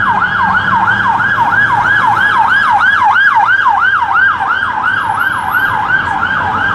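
A police van's siren on a rapid yelp, sweeping down in pitch and snapping back about three times a second, over a low traffic hum.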